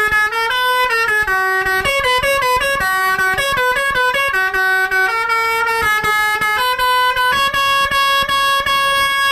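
A bus's basuri telolet horn, a multi-tone horn, playing a tune as a run of horn notes stepping up and down in pitch, settling into a long held chord near the end.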